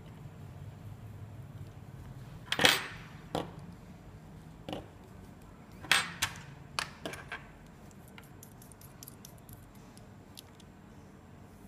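Small metal parts and tools of a rebuildable vape atomizer being handled: a handful of sharp metal clinks and taps, the loudest about two and a half and six seconds in, then fainter light ticks.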